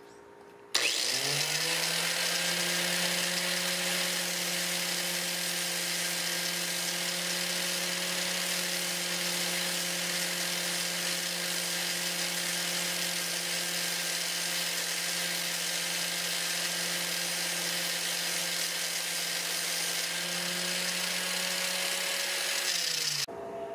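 Electric angle grinder with a diamond wheel, switched on about a second in, spinning up with a rising whine and then running steady and unloaded, before stopping near the end.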